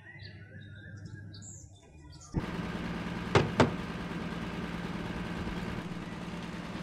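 Birds chirping faintly for about two seconds, then a sudden cut to a pickup truck's engine running with a steady low hum. Two sharp knocks come close together about a second after the cut.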